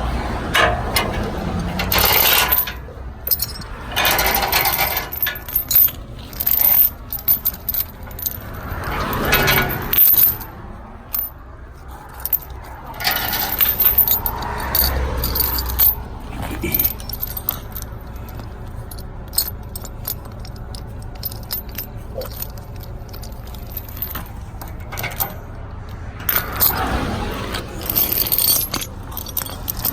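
Steel tow chain clinking and rattling as it is handled and rigged, in irregular bursts of metal clanks and scrapes, over the low steady hum of an idling truck engine.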